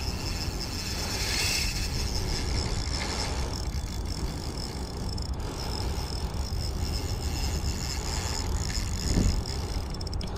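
Spinning reel's drag buzzing as a hooked fish pulls line off the spool, over wind rumble on the microphone.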